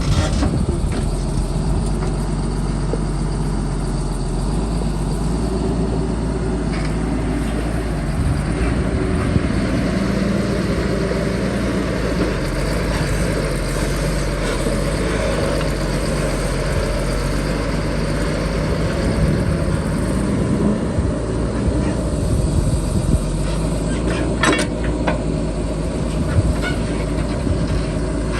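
Heavy excavator's diesel engine running steadily under load as it digs and moves sand, with a few short metallic clanks near the end.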